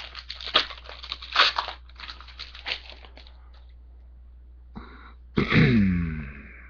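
Foil trading-card pack wrapper crinkling and tearing open in a run of quick crackles, then near the end a short vocal sound that falls in pitch.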